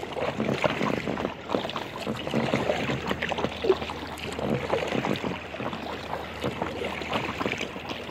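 Water lapping and splashing around the hull of an inflatable kayak under way on choppy water.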